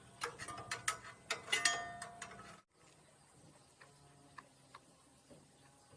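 Sharp metallic clicks and clinks with short ringing, a dozen or so over about two and a half seconds, then an abrupt cut to a faint low hum with a few soft ticks.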